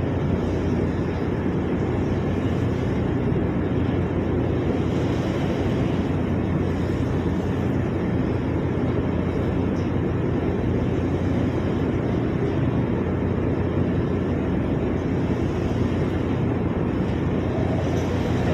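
Ship's engines and machinery running, a steady low drone with a constant hum.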